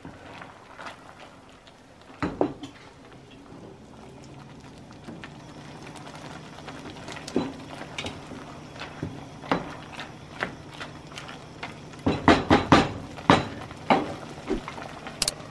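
A wooden spoon stirring whole sunflower seeds in water in a stainless steel pot, knocking and scraping against the pot now and then, with a quick run of knocks about twelve seconds in.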